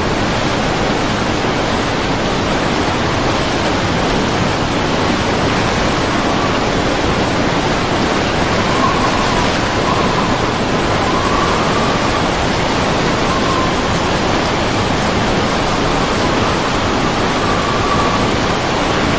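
Fast-flowing muddy floodwater rushing past and over railings and embankment edges, a steady, unbroken wash of water noise.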